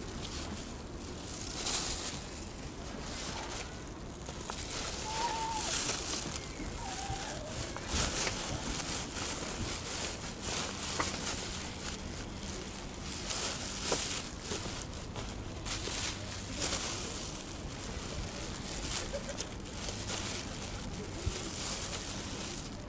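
A white plastic bag rustling and crinkling in repeated bursts as it is handled while gear is packed up.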